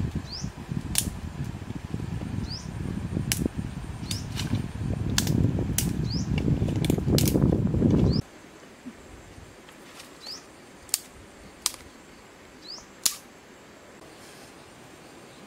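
Low rumbling wind noise on the microphone for about eight seconds, breaking off suddenly. After the break, a small wood fire crackles faintly, with a few sharp pops. Throughout, an animal calls with a sharp click and a short rising chirp, about once a second.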